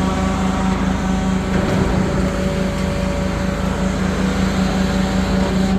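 Engine-driven machinery running steadily at constant speed, a loud even hum.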